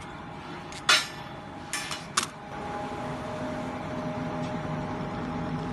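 Three sharp knocks, the loudest about a second in and two more close together about a second later, then an air compressor running steadily with a hum of several held tones that rises a little.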